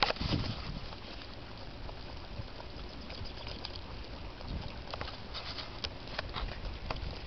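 Dog cart rolling along a paved road behind three trotting dogs: a steady rolling noise with the patter of paws on asphalt and scattered light clinks, with one sharp clack at the start.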